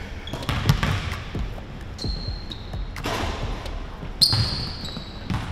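A basketball bouncing on a hardwood gym floor, with sharp knocks scattered through. Basketball sneakers squeak on the floor in two long squeals, one about two seconds in and a louder one just past four seconds.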